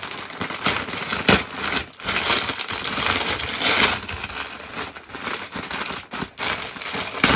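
Shiny metallic plastic gift bag and clear plastic wrapping crinkling and crackling as they are handled and pulled open. The rustling comes and goes, loudest a couple of seconds in, with a sharp crackle near the end.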